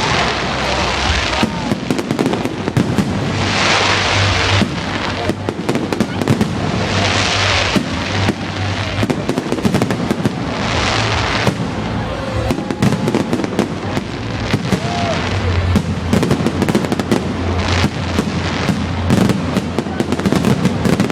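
Fireworks finale: a dense, rapid barrage of bangs and pops, with a hissing crackle that swells and fades about every three to four seconds.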